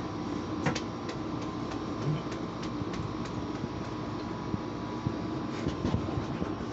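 Steady room hum with scattered light clicks and taps.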